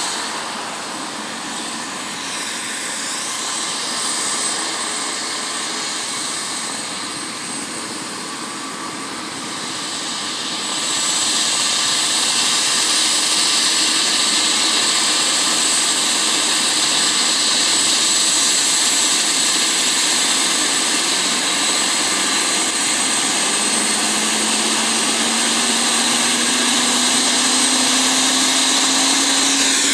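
Twin-turbine Airbus EC145 (MBB-BK117C2) helicopter running on the ground with its main rotor turning: a steady turbine whine and rotor noise that gets louder about ten seconds in. In the last several seconds a low tone slowly rises in pitch as the engines spool up ahead of take-off.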